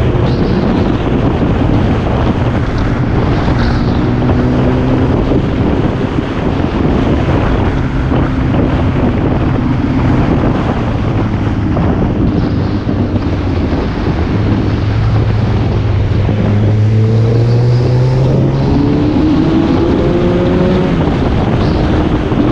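Wind rushing over the microphone of a moving vehicle, with its engine running underneath. The engine note holds steady for a while, then rises several times over the last few seconds as the vehicle accelerates.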